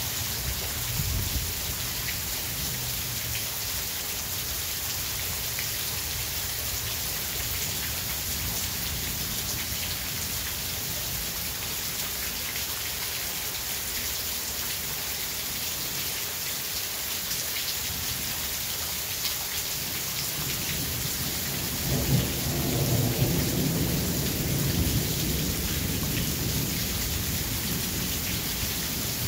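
Steady rain hissing through a thunderstorm. About three-quarters of the way in, thunder begins to rumble low and rolls on for several seconds.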